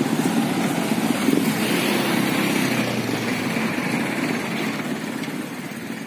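Small motorcycle and scooter engines running as motorbikes ride past on a street. One grows louder a second or two in, and the traffic sound tapers off toward the end.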